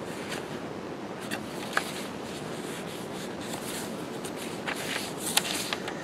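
Light rustles and taps of paper and cardstock as a small card is tucked into a journal page pocket and a page is turned, over a steady background hiss.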